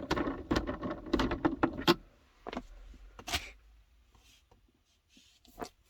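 Plastic clicking and rattling as the gear shift knob of a 2007 Mazda 6 is twisted and unscrewed off the shifter. There is a dense run of rattles for about two seconds, then a few scattered clicks.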